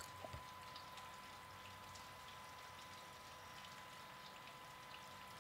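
Faint pour of beer from a stainless draft tap into a pint glass: a steady soft hiss with scattered small fizzing ticks, after a click at the start.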